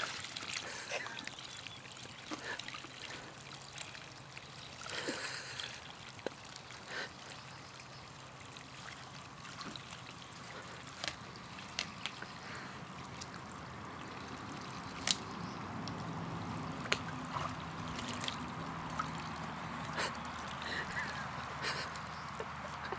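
Water trickling steadily out through a torn corner of a frame pool's vinyl liner onto grass: the pool is leaking. A few short sharp clicks come over it.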